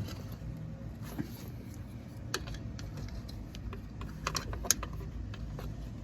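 Scattered light clicks and taps of plastic door parts and a wiring connector being handled and unclipped, with a sharper click a little past two seconds in and a quick run of clicks about four to five seconds in.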